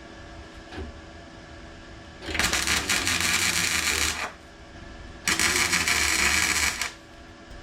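Welder arcing on car sill steel in two crackling, hissing bursts of roughly two seconds and a second and a half, with a short break between, and a low hum beneath each burst.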